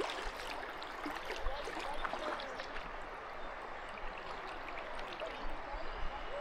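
River water rushing and gurgling through riffles around a kayak, with many small splashes and bubbling blips.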